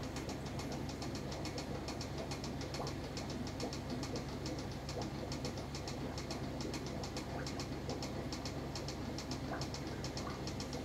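Steady low mains hum of running aquarium equipment, with a fast, even high-pitched ticking at about five ticks a second over it.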